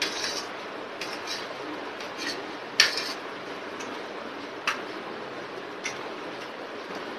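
Metal spoon clinking and scraping against a ceramic plate while scooping rice: a string of short sharp clinks, the loudest about three seconds in, over a steady background hiss.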